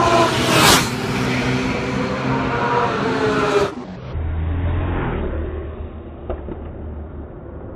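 Racing motorcycle engine at high revs passing close, loudest under a second in, its note carrying on for a few seconds. About three and a half seconds in the sound drops abruptly, leaving a quieter low rumble.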